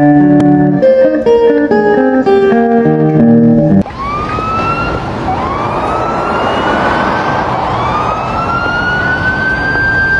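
Guitar music with held notes, which cuts off abruptly about four seconds in. Street noise follows, with an emergency vehicle siren wailing in repeated rising sweeps over a steady hiss of traffic.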